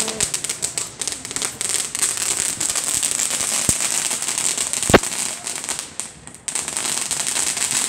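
A ground firework crackling densely and continuously, with one louder bang about five seconds in. The crackling drops away briefly around six seconds, then picks up again.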